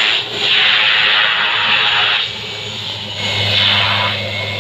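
Single-engine turboprop plane taxiing close by after landing: a steady low engine hum under a loud rushing propeller whoosh that swells twice and eases off as the plane turns past.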